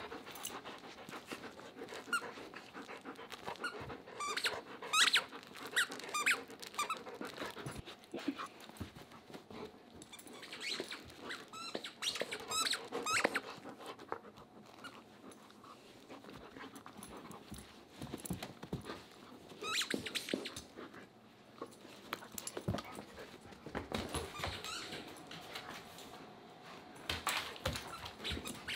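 A German Shepherd chewing and tugging a plush squeaky toy, setting off clusters of sharp squeaks every few seconds, with the dog panting in between.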